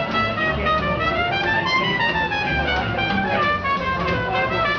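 Live small jazz band playing: a trumpet carries a melody that climbs and falls over a plucked upright bass and a strummed guitar.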